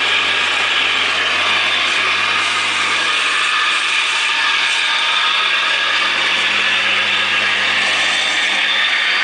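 A small engine running steadily at an even speed, with a constant low hum under it.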